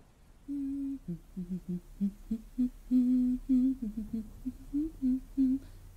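A woman humming a tune, starting about half a second in, in short notes that step up and down.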